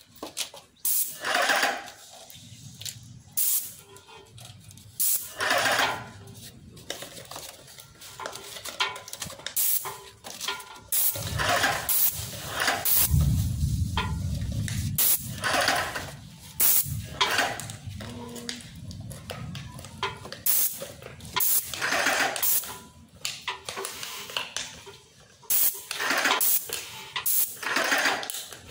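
Graco Magnum ProX19 airless paint sprayer gun hissing in many short bursts as the trigger is pulled and released while paint is sprayed. A low rumble comes in for a few seconds around the middle.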